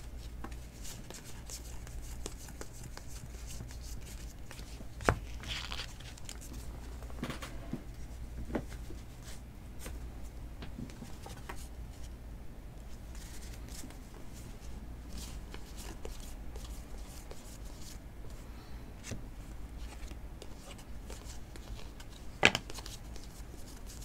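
Football trading cards handled by hand: soft sliding and light taps of card stock as a stack is flipped through, with two sharper clicks, about five seconds in and near the end, over a low steady hum.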